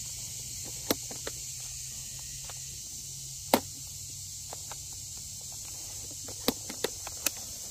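Sharp clicks, about seven of them and scattered, from the controls and handle of a Husqvarna Power Axe battery chainsaw being worked while the saw fails to start: its motor does not run. A steady high hiss of evening insects lies underneath.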